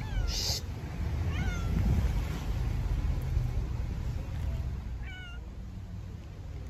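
Street cat meowing three times: short calls that fall in pitch, at the start, about a second and a half in and again about five seconds in, over a low background rumble.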